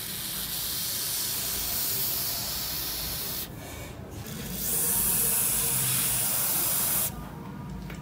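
Aerosol can spraying through a red straw nozzle onto a rusty steel hammer head, coating it with rust-removing liquid. There are two long hissing sprays: the first stops about three and a half seconds in, and the second starts a second later and cuts off near the end.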